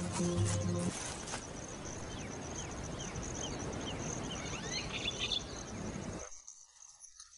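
Natural outdoor ambience: a steady high insect trill over a low hiss, with a string of short, falling bird chirps in the middle. It cuts out to near silence near the end.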